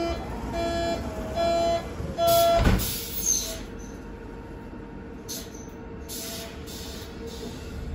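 Berlin U-Bahn door-closing warning beeps, a steady tone switching on and off several times, then the car's sliding doors shut with a knock about two and a half seconds in. After that there is only the low hum of the train car.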